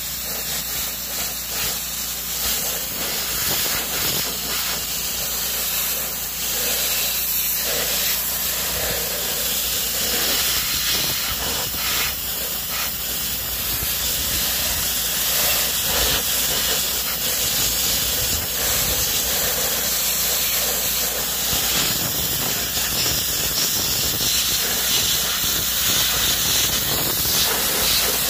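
Pressure washer jet spraying steadily against tractor sheet metal, a continuous hiss as it blasts off paint loosened by electrolysis.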